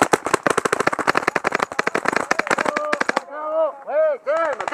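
Paintball marker firing a rapid string of shots for about three seconds, then stopping. A voice then shouts in short, repeated rising-and-falling calls.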